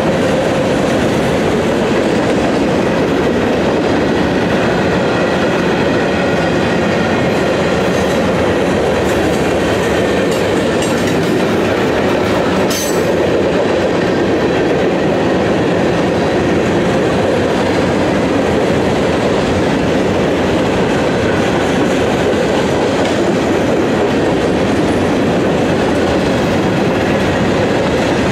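Freight cars of a mixed freight train rolling past: a steady rumble and clickety-clack of wheels over the rail joints, with faint high-pitched ringing from the wheels. A single sharp click stands out about halfway through.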